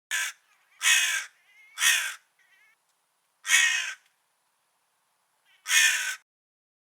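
A crow cawing five times, harsh and raspy, each caw about half a second long, with uneven gaps and a longer pause before the last two.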